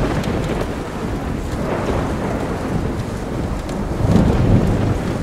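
Thunder rumbling in low, rolling swells over steady rain, with a louder swell about four seconds in.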